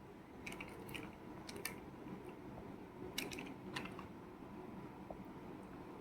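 Faint, irregular small clicks and light rustling from plastic toys being handled.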